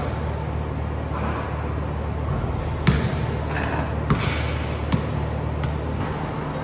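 A basketball bouncing on a hardwood gym floor: three separate thuds, about a second apart, over a steady low hum.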